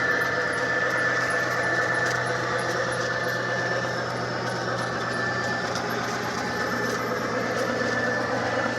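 G-scale garden railway train running on its track: a steady whine from the electric motor and gearing over a continuous rolling noise, with the higher whine tone fading about six seconds in.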